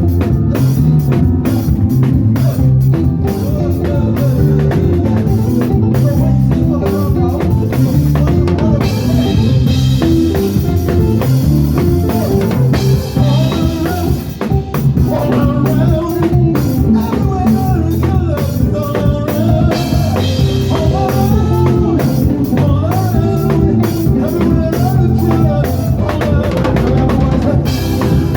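Gospel praise-and-worship band music: a drum kit keeps a busy, steady beat over a heavy bass line, and a melody line comes in over it about nine seconds in.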